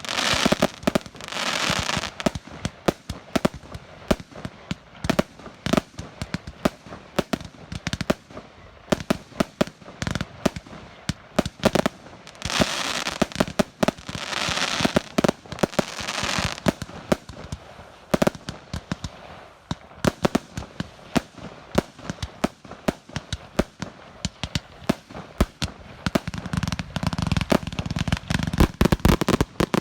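Professional fireworks display: a rapid run of sharp bangs with dense crackling, thickening into hissing, crackling salvos near the start and again around the middle.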